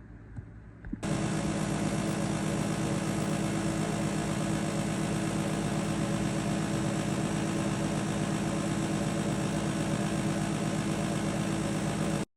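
Daikin air conditioner running: a steady machine hum under a broad rushing whoosh. It comes on suddenly about a second in and stops abruptly at the end.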